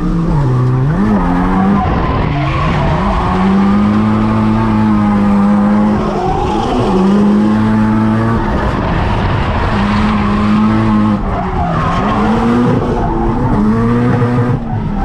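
Nissan 180SX's SR20 four-cylinder engine revving hard through a drift run. It is held at high revs for a second or two at a time, then dips and climbs again as the throttle is worked, over the noise of sliding tyres, heard from inside the cabin.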